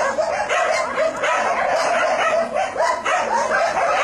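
Shelter dogs barking over one another in a continuous, overlapping chorus, several barks a second.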